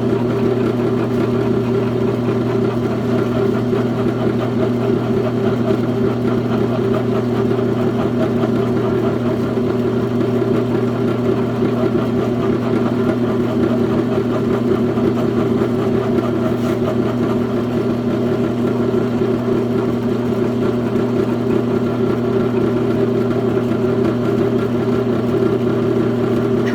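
Milling machine running with a steady, unchanging hum, set up to drill and mill epoxy.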